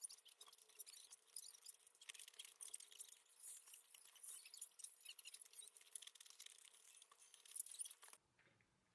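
Dense, fast crackling with small clicks, mostly high in pitch, that cuts off suddenly about eight seconds in.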